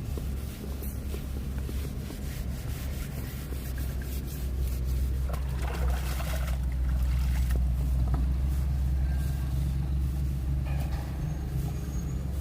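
Engine running steadily with a low drone, growing a little louder about five seconds in.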